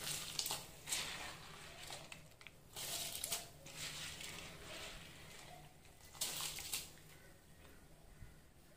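Rice and toor dal tipped by hand into boiling water in an aluminium pressure cooker. There are short splashing, rustling bursts at the start, about a second in, and again around three and six seconds, over the steady bubbling of the boil.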